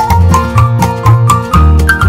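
Background music: a quick melody of short notes, about four a second, over a repeating bass line.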